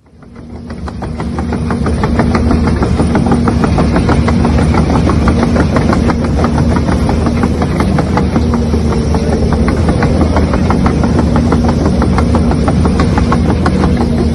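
Excavator engine sound running at a steady idle with a fast, regular knocking rhythm. It fades in over the first two seconds.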